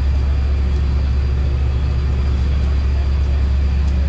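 A steady, loud low drone of a running engine, unchanging throughout.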